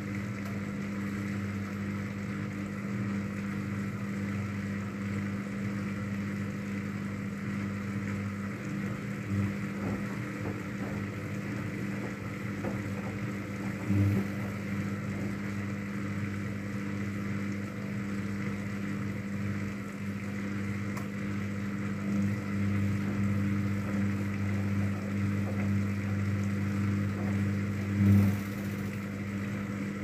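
Daewoo DWD-FT1013 front-loading washing machine turning its drum slowly with a wet load, balancing it before the spin: a steady motor hum, with a louder thump about halfway and another near the end.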